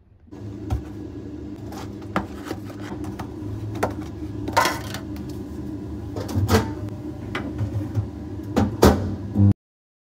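Steady room hum with a series of knocks, clicks and rustles of a lunch bag and food containers being handled and set down on a desk. The loudest knocks come near the end, and the sound cuts off suddenly.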